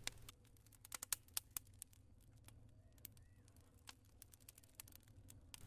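Faint crackling of a wood fire: sharp pops and snaps at irregular intervals, bunched more thickly in the first second and a half.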